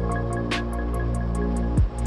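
Background music: a held deep bass note and chord, with one sharp hit about half a second in and a deep drum beat near the end.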